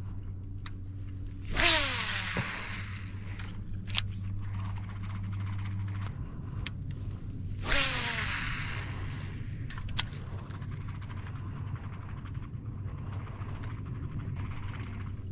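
Two casts with a fishing rod and reel, about six seconds apart. Each is a sudden whoosh of line paying out, with a whine that falls in pitch as the spool slows, and sharp clicks follow as the reel is engaged. A steady low hum runs underneath and stops about six seconds in.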